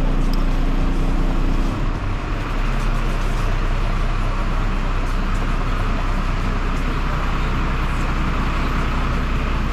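Truck engine running steadily to power its hydraulic crane, with a slight change in its note about two seconds in.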